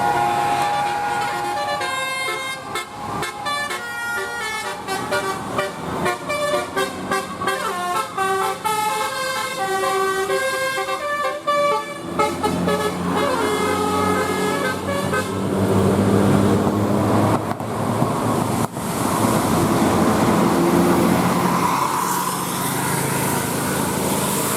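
Bus telolet horn, a set of electrically switched air horns, playing a melody of short stepped notes for about ten seconds. After that a heavy bus engine runs loudly under a few longer held horn notes.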